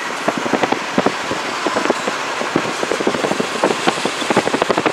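Steady road and wind noise of a moving car, with rapid, irregular thumps throughout.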